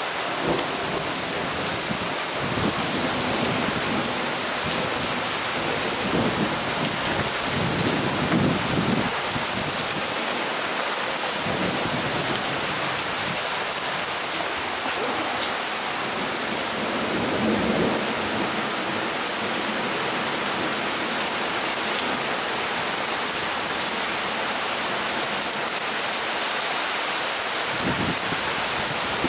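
Heavy wind-driven summer rain pouring steadily, with low rumbles of thunder several times.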